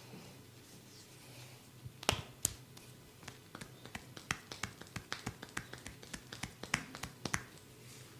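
A series of about twenty sharp snapping clicks from a barber's hands during a massage, irregular, a few a second. They start about two seconds in and stop shortly before the end; the first few are the loudest.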